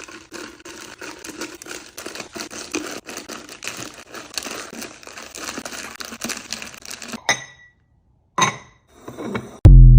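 Crinkling and rustling, as of plastic packaging being handled, stopping abruptly about seven seconds in. A short rustle follows, then a loud, deep thump near the end.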